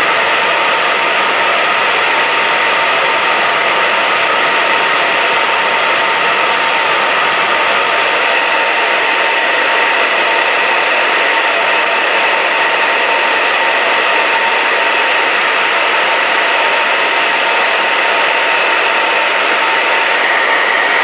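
A 220-volt hair dryer running steadily: an even rushing blow of air with a thin motor whine over it.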